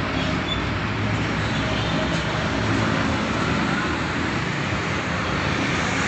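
Steady engine rumble with a dense mechanical clatter, like a motor vehicle running close by.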